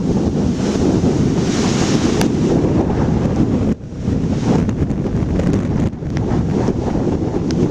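Strong wind buffeting the microphone, with heavy ocean surf from big waves breaking under it. The wind is the loudest part, easing for a moment twice, near the middle and a couple of seconds later.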